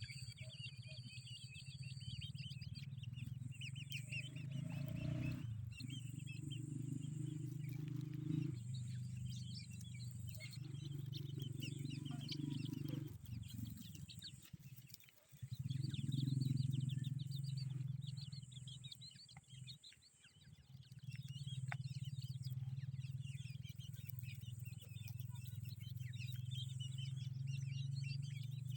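Grey francolin chicks peeping: many short, high chirps throughout, over a steady low hum.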